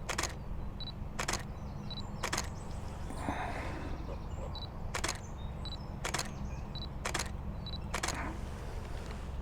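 A digital camera taking single shots. Each one is a short high focus-confirm beep followed a moment later by a shutter click, about seven times at roughly one-second intervals.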